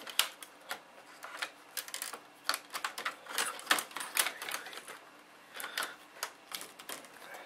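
Plastic retaining clips of an HP G50 laptop's bezel snapping loose one after another as the panel is pried up along the side: a run of irregular sharp clicks and pops, thickest in the middle.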